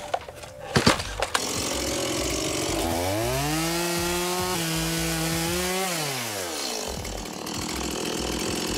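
Small Stihl two-stroke chainsaw being pull-started, catching after a couple of knocks in the first second. It then revs up and holds high while the chain cuts through a tree root in the soil, and drops back to idle near the end.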